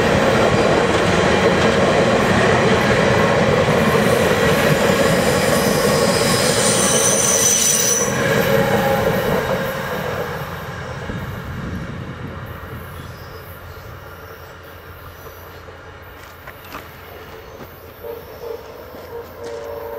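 Passenger train cars passing at speed, with loud steel wheel-on-rail noise that fades steadily from about eight seconds in as the end of the train moves away.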